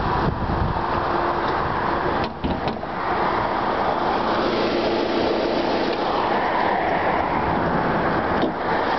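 2004 Toyota Highlander's 16-valve VVT-i four-cylinder engine idling, a steady hum with fan whir, heard from beside the front of the car. Wind rumbles on the microphone at the start.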